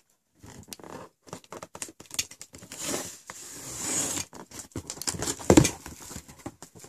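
Cardboard shipping box being opened by hand: irregular scratching, tearing and rustling of the cardboard and its packing, with one longer rip about three and a half seconds in and a thump about five and a half seconds in.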